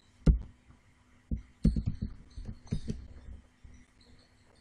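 Irregular clicks and taps of a computer keyboard and mouse as a line of code is edited, a dozen or so keystrokes, most of them bunched together in the middle.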